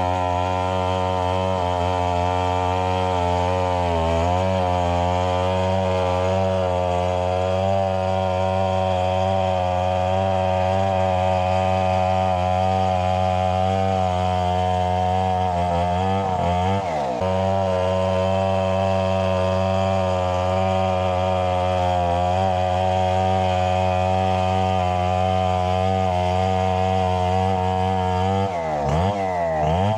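Two-stroke chainsaw running hard under load, cutting coconut trunk into lumber. The engine pitch sags and picks up again briefly a few times, most clearly about halfway through and near the end.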